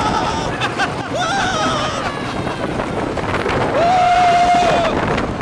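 Riders yelling on a wooden roller coaster, with a long held scream about four seconds in, over a steady rush of wind and the rumble of the train on the track.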